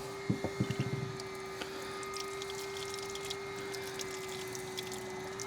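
A few light knocks and clicks in the first second as the inline water filter and hose fittings are handled and positioned, over a steady background hum.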